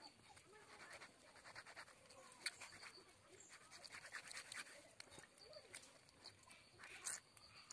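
Faint scratchy scraping of a small knife scaling and cleaning a river fish against a wet stone, in quick runs of short strokes with a sharper click near the end.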